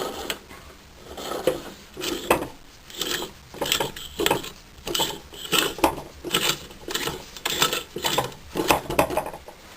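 Rebuilt Puch moped engine being turned over, with a rhythmic mechanical clicking and rubbing repeating a little more than once a second, a sound that doesn't sound good.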